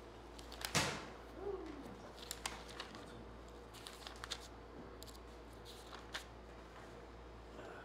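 Pages of a Bible being turned and leafed through: several faint, irregular papery flicks and rustles, the sharpest just under a second in, over a low steady room hum.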